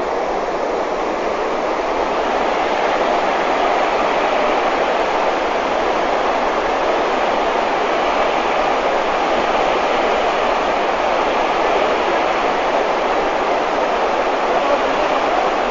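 Fast mountain torrent of white water rushing steadily, getting a little louder after the first couple of seconds.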